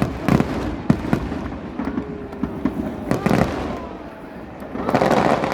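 Stadium fireworks display: a rapid series of bangs and pops with thin whistling glides among them, dipping briefly and then swelling into a louder, denser stretch near the end.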